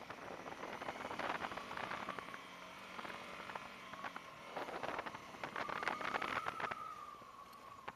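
Honda CRF250 Rally's single-cylinder engine running as the motorcycle rides over a gravel track, its note rising and falling with the throttle, with gravel crackling and ticking under the tyres.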